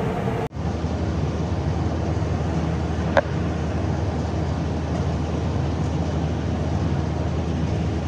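Tractor engine running steadily with a Massey Ferguson 1842S small square baler working behind it, picking up and baling straw. A single sharp click about three seconds in.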